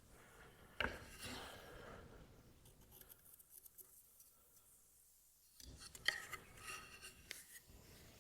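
Pencil scratching as it marks a center line on a cherry bow rocker, with a light knock about a second in. The scratching comes in two short spells with a pause between.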